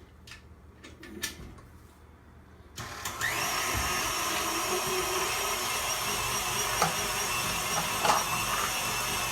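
A few light clicks, then an electric meat grinder switches on about three seconds in and runs steadily with a whirring motor hum as it grinds soaked chickpeas.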